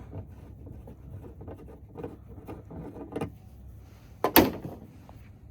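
Hand handling noise as a part is taken off: faint rustling and small taps, then one sharp click about four seconds in.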